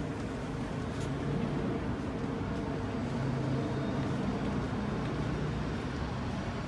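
City street ambience: a steady hum of traffic and idling engines, with a few faint footstep clicks.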